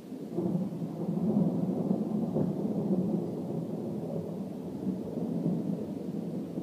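Thunder rolling: a low rumble that swells about half a second in and rolls on for several seconds, slowly fading.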